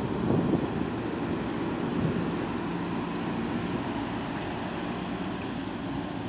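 Ford 6.2-litre V8 gasoline engine of a 2015 F250 Super Duty pickup running at a steady idle, a low even rumble with no revving.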